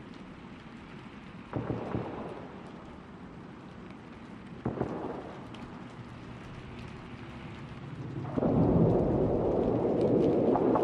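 Battle ambience: a low rumbling background broken by two distant explosion booms, about a second and a half and nearly five seconds in, each rolling away. Past the eight-second mark a loud, sustained crackling rumble sets in and keeps going.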